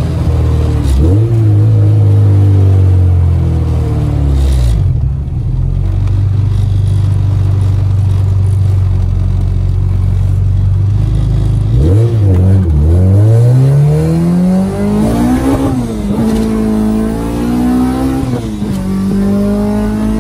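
Honda F20B inline-four engine of a Civic, heard from inside the cabin while driving. The revs hold steady for stretches, then rise and fall several times, with one long climb a little past the middle that drops off sharply, as with a gear change through the freshly rebuilt gearbox.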